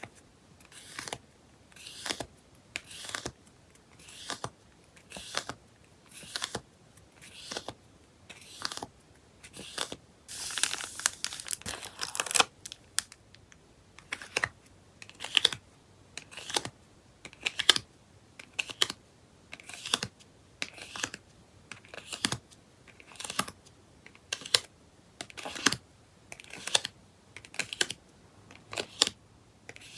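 Hands packing photocards: short crisp rustles and clicks of plastic sleeves and paper packaging, about one a second, with a longer stretch of crinkling about ten seconds in.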